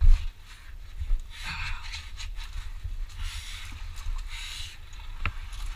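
A knock against the camera, then water splashing and sloshing in short spells as a person wades into a deep pool of water.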